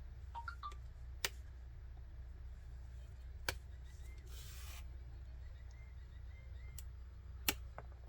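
Small tools working at a laptop's 3.5 mm audio jack: a few sharp separate clicks and one brief scrape about halfway through, over a steady low hum.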